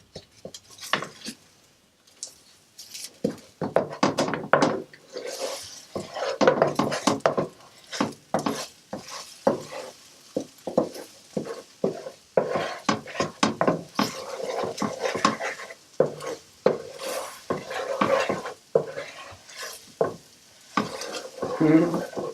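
A cooking utensil stirring and scraping in a frying pan on the stove, with irregular clinks and knocks against the pan and some sizzling of the food.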